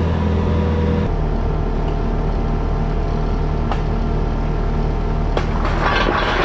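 Diesel engine of a compact loader idling steadily, dropping to a lower idle about a second in. Near the end a rattling clatter joins it as river stones start spilling out of the wire basket.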